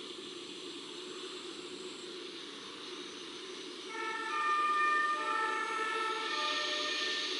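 A distant two-tone emergency-vehicle siren comes in about four seconds in, switching back and forth between two pitches for about three seconds. It sounds over a steady hiss of breeze and water.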